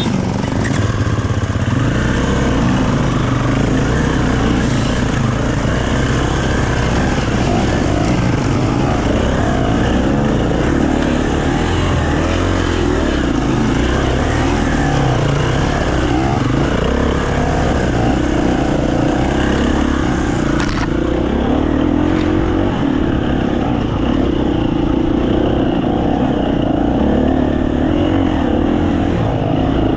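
Enduro dirt bike engine running under load close to the microphone, the pitch wavering with the throttle as the bike climbs a rough trail. One sharp knock about two-thirds of the way through.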